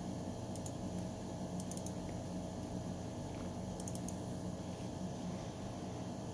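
Quick computer mouse clicks in three small groups, about half a second, two seconds and four seconds in, over a steady low electrical hum with hiss.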